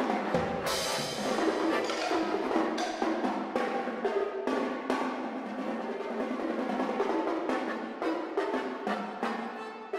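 Percussion and accordion playing contemporary concert music together. The percussion gives quick, dense strikes over sustained accordion chords.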